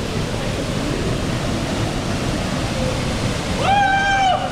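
Steady rushing roar of a waterfall pouring into its pool. Near the end a short, high, held call cuts in over it for under a second.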